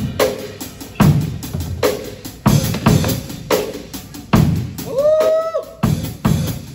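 Drum kit played in a loose, steady beat of kick drum and snare hits. About five seconds in, a held note slides up in pitch and sustains for under a second.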